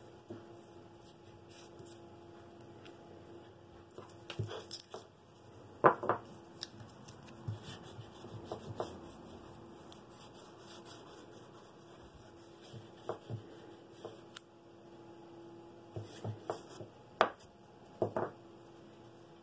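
Hands working a paper pattern and blue painter's tape on a wooden block: scattered rustles, rubs and taps, with a few sharper snaps, the loudest about six seconds in and two more near the end. A faint steady hum runs underneath.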